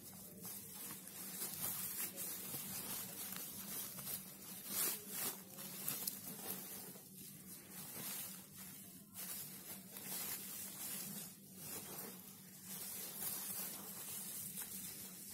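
Rustling of a padded brocade potli bag's stiff fabric as hands open it and squeeze it, in soft irregular rustles, over a faint steady hum.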